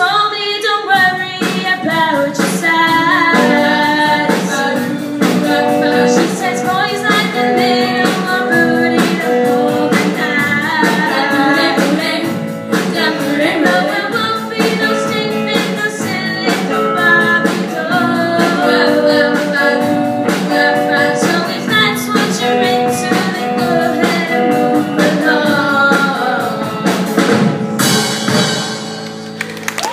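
Live school band: a group of girls singing together over guitar, double bass and drums with a steady beat, the song coming to its close near the end.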